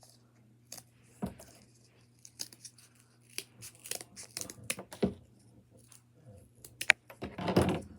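Cardboard being cut with scissors and handled: scattered short snips and clicks, then a sharp click and a louder rustling scrape near the end.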